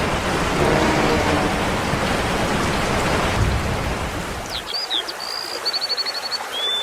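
Steady hiss of rain. About five seconds in it drops away, and short, high bird chirps and a quick trill follow.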